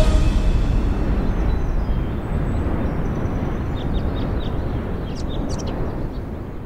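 Outdoor ambience: a steady rushing wind noise with brief, high bird chirps scattered from about two seconds in, fading out near the end.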